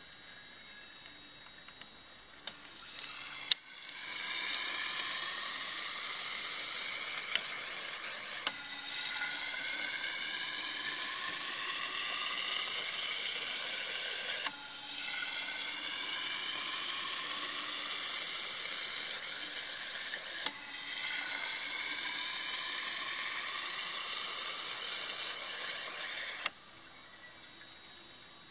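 Four fuel injectors on a flow-test bench spraying test fluid into glass measuring cylinders: a steady hiss with whistling tones that rise in pitch as the cylinders fill. The spray starts about three seconds in and runs in four spells of about six seconds, separated by brief clicks. It stops suddenly near the end.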